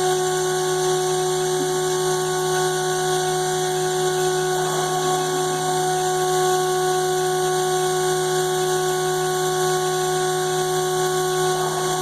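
CNC router spindle running steadily during a cut: a constant machine whine of several steady tones over an even hiss.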